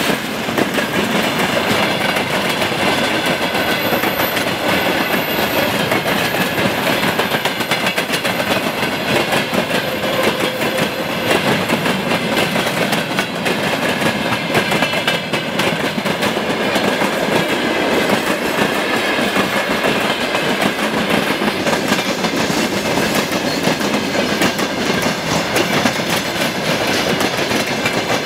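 Railway cars of a train hauled by a 2TE10M diesel locomotive rolling past on the track. The steady rush of wheel noise is dense with quick clicks, and it holds an even level throughout.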